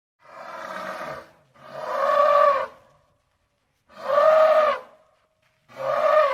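An animal calling four times, each call about a second long with gaps between, the second and third the loudest.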